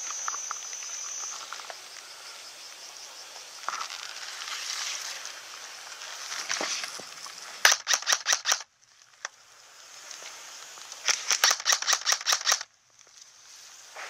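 Airsoft M16 rifle firing rapid semi-automatic shots in two strings: about six shots a little past the middle, then about eight more near the end.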